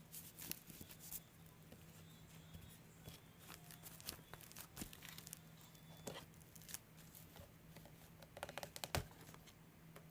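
Faint scattered clicks and crinkles of slime containers and their plastic lids being handled, with a cluster of sharper clicks near the end, over a faint steady hum.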